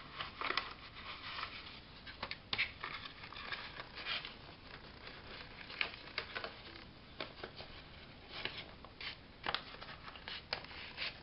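Wiping stray glue off a paper page: irregular short rustling scuffs and light taps as the surface is rubbed.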